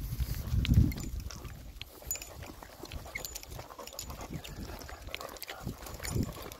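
Footsteps of people and dogs walking on a path: scattered light scuffs and ticks, with low thumps about a second in and again near the end.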